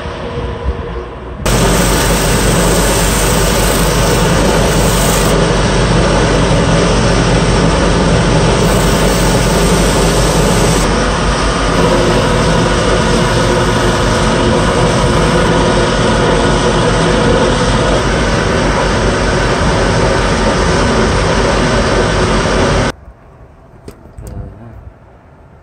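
Wood lathe running steadily as a cloth is held against the spinning turned wooden horn, a loud constant machine noise with a low hum. The noise stops abruptly near the end, leaving only faint handling clicks.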